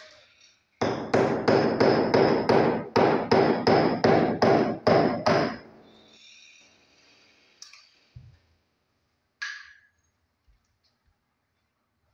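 Hammer striking a steel chisel into a plastered masonry wall to cut a recess for a flush-mounted electrical box. About fifteen quick blows come at roughly three a second, each with a metallic ring, and stop about six seconds in.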